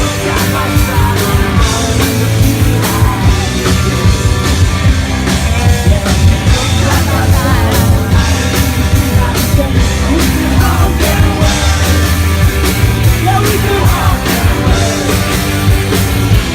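Rock band playing loud and live: electric guitars, bass and drums with singing.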